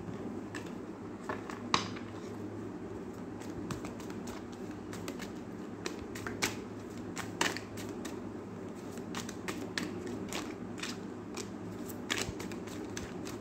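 A tarot deck shuffled by hand, overhand style: a run of irregular light card clicks and riffles, over a low steady hum.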